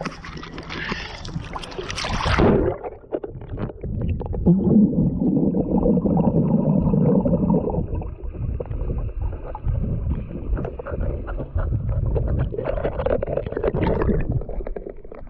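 Water splashing at the surface. About two and a half seconds in, the sound suddenly turns dull and muffled as the camera goes under the lake water, leaving a low underwater rumble with bubbling from the swimmer.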